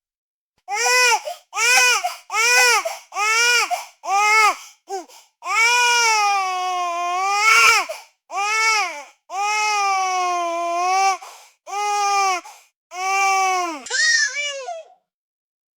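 Newborn baby screaming and crying: about five short wails, each rising and falling in pitch, then longer drawn-out wails with brief silent breaths between them, the last one breaking up near the end.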